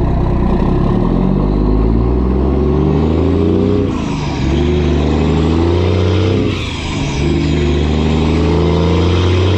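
Truck engine accelerating under load while towing a trailer with an excavator on it, its pitch climbing and dropping back at upshifts about four seconds in and again between six and seven seconds.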